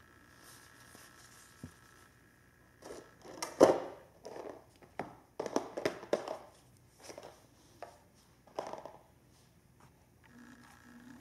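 Paper napkin rustling and crumpling in a run of short, irregular crackles, loudest about three and a half seconds in.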